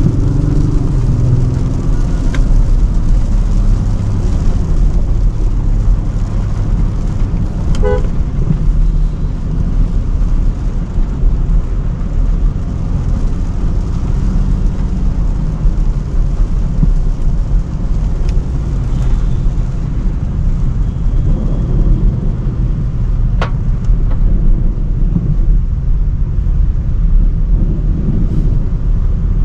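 Range Rover Sport driving, with a steady low rumble of engine and road noise. A short horn toot sounds about eight seconds in.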